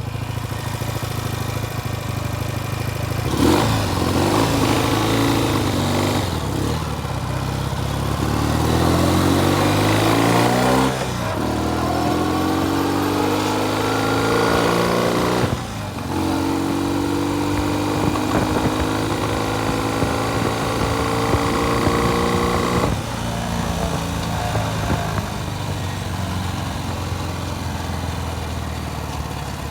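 Classic Norton motorcycle engine running while being tuned. It is blipped up in pitch twice, about eight and twelve seconds in, each time falling back to a steady idle.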